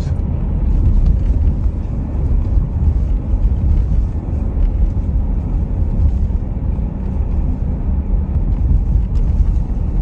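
Steady low rumble of a car's engine and tyres, heard from inside the cabin while it drives along a street.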